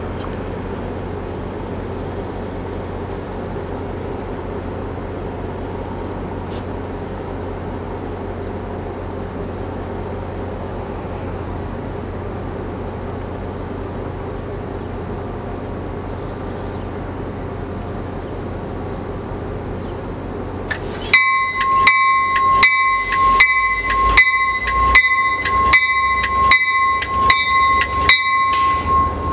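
Standing NJ Transit commuter train with a steady low hum. About 21 seconds in, the Bombardier Comet V cab car's bell starts ringing, about three strikes every two seconds, as the train begins to pull away.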